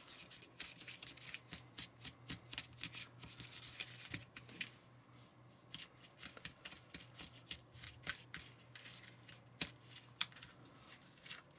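Small plastic mixer spoon scraping and clicking against a plastic mixing tray as powdered waffle mix and water are stirred and worked into a dough: faint, irregular clicks and scrapes.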